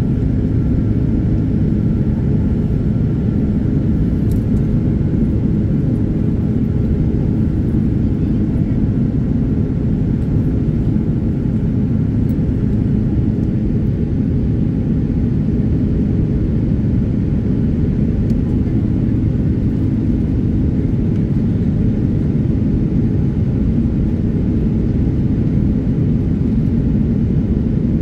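Inside the cabin of an Airbus A330 in flight: the steady low noise of its Rolls-Royce Trent 700 engines and the airflow, heard from a window seat over the wing.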